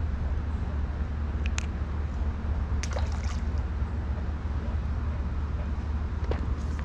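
Steady low outdoor rumble, with a few faint clicks from hands handling a fish and a fishing lure.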